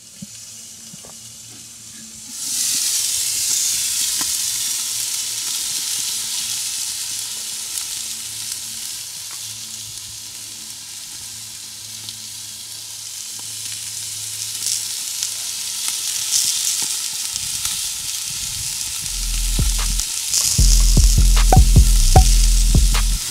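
A loud, steady hiss that starts suddenly about two and a half seconds in, with faint low held notes beneath it. Near the end a deep bass rumble and a few sharp clicks come in.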